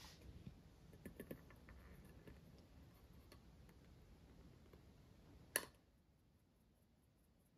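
Flour being sifted through a fine-mesh metal sieve, which is shaken and tapped: faint rustling and soft ticks, a few light ticks about a second in, and one sharp tap about five and a half seconds in.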